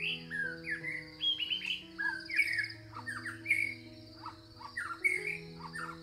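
Songbirds singing a quick run of varied chirps and whistled slurs, over soft music with long held notes. A steady, pulsing high trill from crickets runs underneath.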